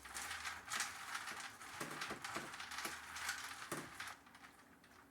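Raw pumpkin seeds being stirred and tossed with their seasonings: a quick, irregular run of rustling, scraping clicks that dies away about four seconds in.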